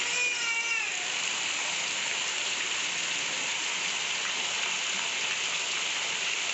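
Steady rain falling on the street and rooftops, with water pouring from roof drain spouts. A short vocal call falling in pitch sounds in the first second.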